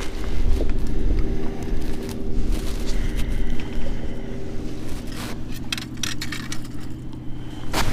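Steady hum of a distant engine, under low rumbling wind on the microphone. A few scrapes and knocks of clothing or gear come in the second half and again near the end.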